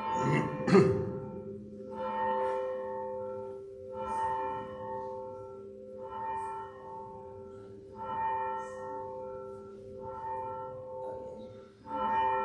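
A single church bell tolling slowly, one stroke about every two seconds with each ring humming on into the next, as is rung to call people to a service. A loud knock sounds about a second in.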